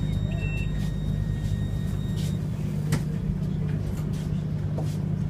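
Steady low hum inside a tram standing still, with a single sharp click about three seconds in.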